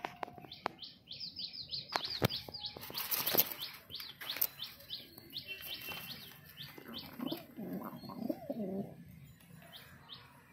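Birds in a pigeon aviary: a rapid run of short, high chirps through the first half, with a brief flutter of wings and a few knocks a few seconds in, then a pigeon's low cooing about three quarters of the way through.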